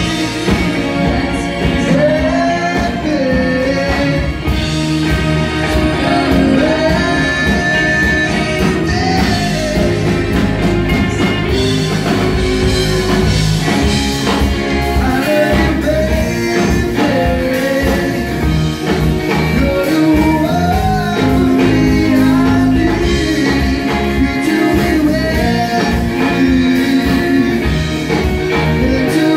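Live pop rock band playing a song: a lead vocalist singing over electric guitars, bass guitar, a drum kit and keyboard.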